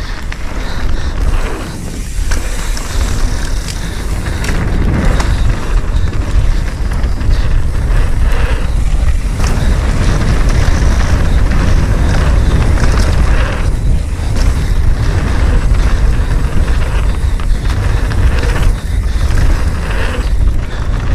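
Mountain bike riding down a rough technical trail: a loud, steady low rumble of tyres over dirt and rock, with frequent knocks and rattles from impacts.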